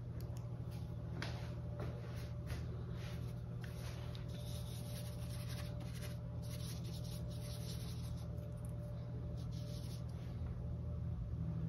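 Paintbrush bristles scratching in a series of short strokes, first on the canvas and then mixing acrylic paint on a palette, over a steady low hum.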